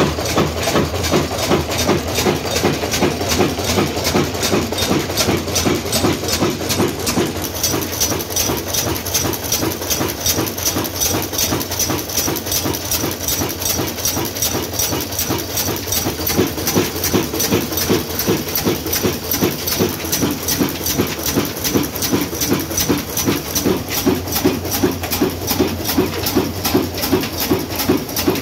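Old Ruston Hornsby diesel engine running steadily, its exhaust chuffing in an even beat of a few strokes a second. A thin high hiss joins after several seconds.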